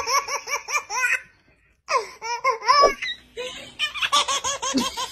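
Baby laughing in quick, rhythmic pulses of about six a second, in three bouts broken by short pauses.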